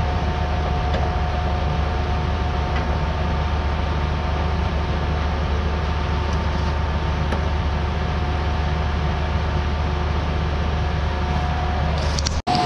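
Tractor engine running at a steady speed, driving a grain auger through its PTO shaft. A steady whine sits over a low, even hum.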